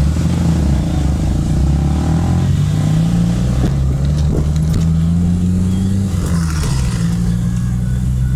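Car engine pulling away and accelerating. Its pitch climbs and then drops sharply about six seconds in.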